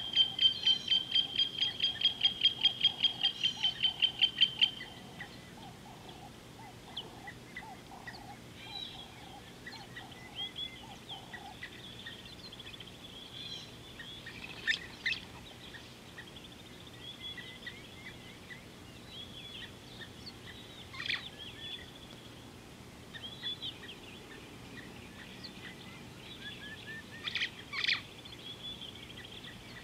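Wild birds calling: a loud series of rapid high piping notes, about five a second, that stops about five seconds in, with a lower chattering call underneath that fades out around eleven seconds in. After that come scattered softer chirps and a few sharper calls.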